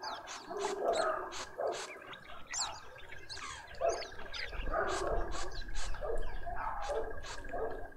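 Garden birds calling at a feeder: a crested barbet's long, even trill runs through most of the clip under many short, quick chirps of small seed-eating birds. A dog barks several times in the background.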